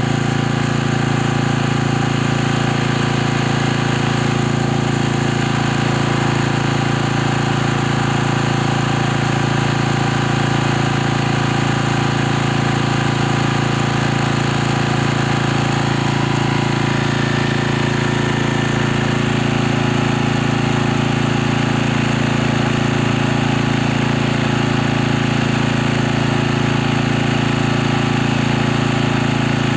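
Small Kubota portable generator's engine running steadily at a constant speed, an even engine drone that does not change.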